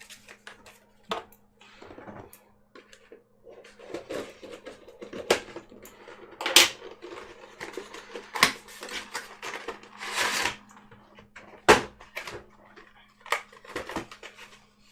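Hands handling and opening trading-card packaging: scattered clicks, taps and short rustles of cardboard and wrapper, with a longer rustle about ten seconds in. A faint steady low hum runs underneath.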